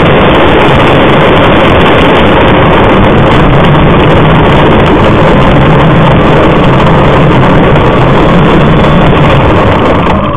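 Model Extra 300 aerobatic plane's engine and propeller heard from a camera mounted on its wing, loud and steady with wind rush as the plane flies low and touches down; the engine pitch starts to drop at the very end.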